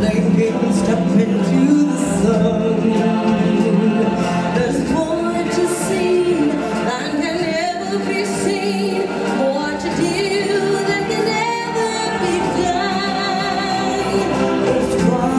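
A group of singers performing a song over instrumental backing, in a stage-musical style, with held notes sung with vibrato.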